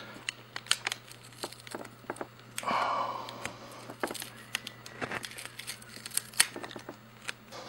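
Handling noise from unplugging a laptop's display cable from the back of its LED panel: scattered small clicks and ticks of fingers on the connector and tape, with a longer crinkle of plastic film about three seconds in.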